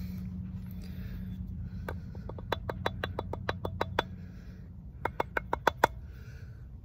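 Steel knife blade tapping on a wooden hearth board in quick runs of light ticks that ring briefly, about six a second. The first run starts about two seconds in, and a shorter second run follows about five seconds in.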